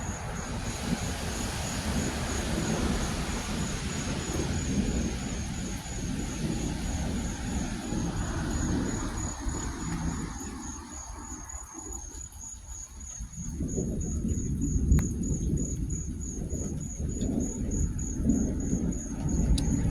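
Crickets chirping in an even pulse, about two to three chirps a second, over a low, broad rumbling noise that fades away about halfway through and then builds back up.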